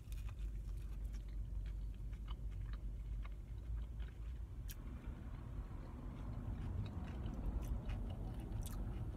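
A man biting into a soft sub roll filled with barbecue rib and then chewing with his mouth full, with small wet mouth clicks. A steady low rumble runs underneath.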